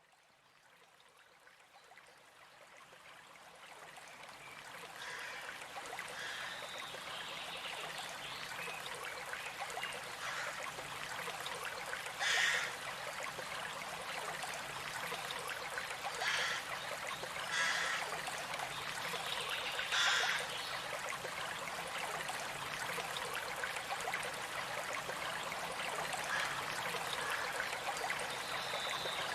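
Steady running water of a stream, fading in over the first few seconds. A few short bird calls sound over it, most plainly about 12, 16, 18 and 20 seconds in.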